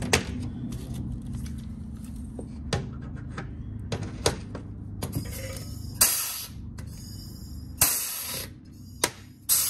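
Pneumatic rivet gun setting a rivet through a carbon-fibre side skirt into the car's body: a few sharp clicks, then three hissing bursts of air in the second half as the trigger is pulled.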